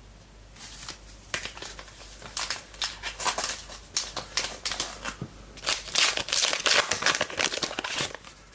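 Trading-card pack being opened by hand: the wrapper crinkling and tearing and the cards rustling as they are handled, a busy patch of crackling that is thickest near the middle and toward the end.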